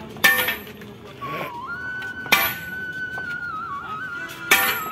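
Sledgehammer blows on metal, three strikes about two seconds apart, each with a short metallic ring. A thin wavering melody plays faintly underneath.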